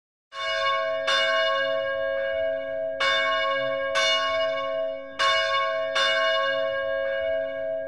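Church bell tolling, struck about once a second, each stroke's ringing carrying on into the next.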